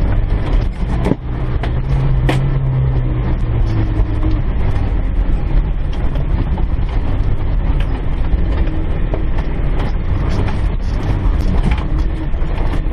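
Land Rover Defender 110's 300Tdi 2.5-litre four-cylinder turbodiesel engine running as the vehicle drives along a rough, stony track. Many short knocks and rattles from the vehicle are heard over the steady engine rumble.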